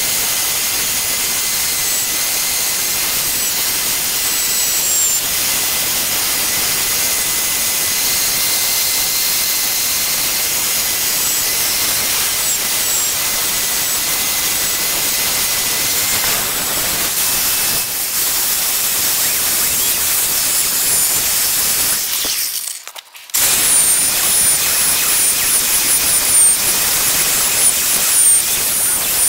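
Corded electric drill running with a wire brush scrubbing the charred surface of carved wood, a steady high-pitched whir and scratch. It stops for under a second near the end and then starts again.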